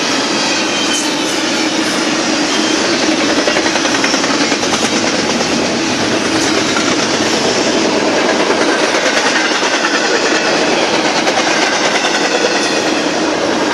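BNSF double-stack intermodal train's well cars rolling past at speed, a loud, steady rumble and clatter of steel wheels on the rails.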